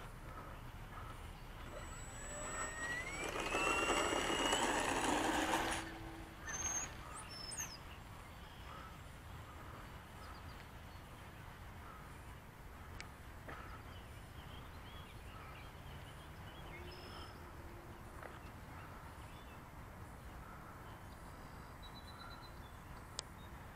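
Electric motor and propeller of a ParkZone T-28 Trojan RC plane spinning up for takeoff, with a whine that rises about two seconds in. It runs loud for a few seconds, then cuts off sharply about six seconds in, leaving only a faint background.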